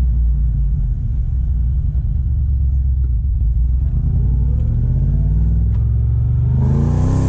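Chevrolet C6 Corvette V8 heard from inside the cabin while driving: a steady low rumble, then the car accelerates from about four seconds in, the engine note rising in pitch.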